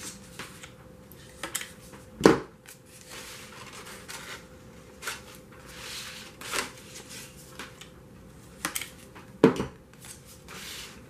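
Stiff cardstock paper petals being handled and pressed into place, with rustling and crinkling. There are short sharp knocks throughout, the loudest about two seconds in and again near the end.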